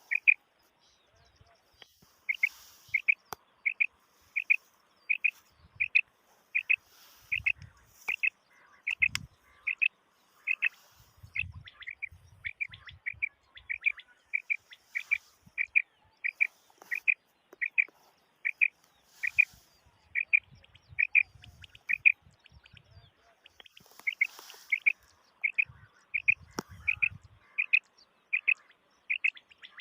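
Common quail calling: short, sharp notes repeated about three times a second in a steady run, after a brief pause near the start.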